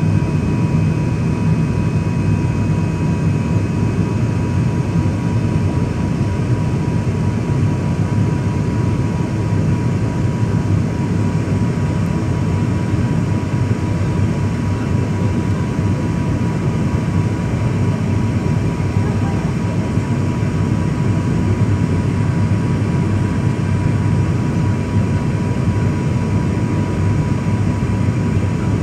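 Airliner cabin noise during the descent to landing: a steady low drone of the engines and rushing air, heard from inside the cabin, with a thin steady whine above it.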